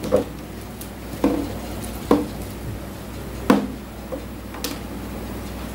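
A partly filled plastic bottle being flipped and landing on a wooden tabletop: several short, sharp knocks roughly a second apart.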